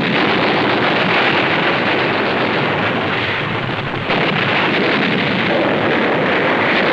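Naval gun bombardment: a loud, continuous roar of ships' guns firing and shells bursting, with no single shot standing out. There is a slight dip in level about four seconds in.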